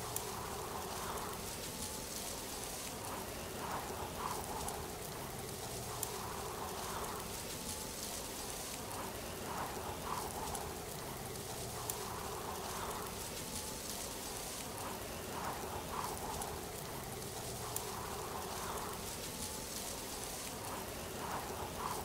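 Waterfall: a steady rush and splash of falling water, with softer swells returning every few seconds.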